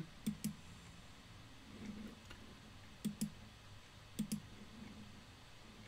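Three quiet computer mouse clicks, each a quick press-and-release double tick, about a third of a second, three seconds and four seconds in.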